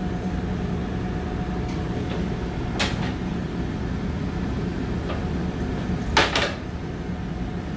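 Steady hum of commercial kitchen ventilation, with a clatter about three seconds in and a louder double clatter just after six seconds, as kitchenware is handled while a plate is fetched.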